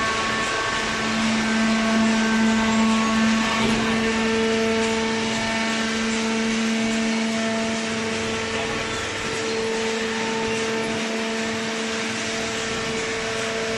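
Industrial cardboard shredder and baler machinery running steadily: a motor hum over a rushing mechanical noise. The hum's pitch shifts up about four seconds in.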